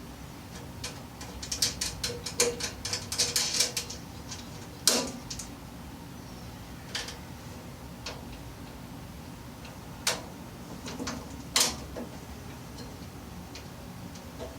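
Sheet-metal parts and bolts of a tool cabinet being handled during assembly: a quick run of small clicks, then a few sharp single metal knocks.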